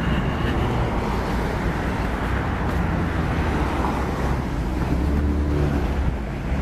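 Street traffic: cars driving along a wet, slushy road, a steady mix of engine hum and tyre noise.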